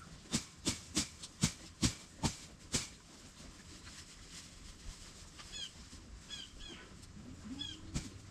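A run of about seven sharp knocks, roughly two a second, then a small bird chirping several times.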